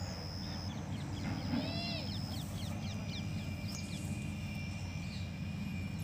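Birds calling in the open: a few arched, slightly harsh calls, the clearest about two seconds in, then a quick run of short chirps, over a steady low rumble.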